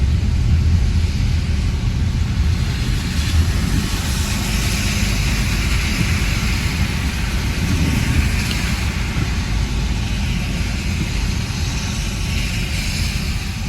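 Steady rush of a rainstorm, with wind buffeting the phone microphone into a heavy low rumble under a hiss of rain and water.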